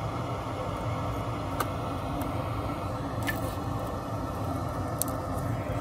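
Steady, even background noise, with three light clicks of plastic terminal blocks and parts being handled.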